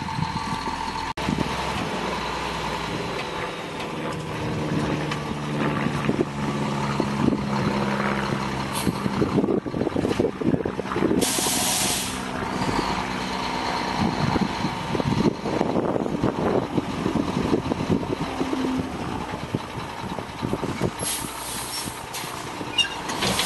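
Dump truck's diesel engine running as it drives slowly, spreading a load of sand. Short air hisses from its air brakes cut in a few times, the longest about halfway through.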